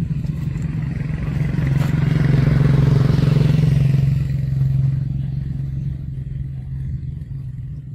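A motor vehicle engine running with a steady low hum. It grows louder to a peak about three seconds in, then fades.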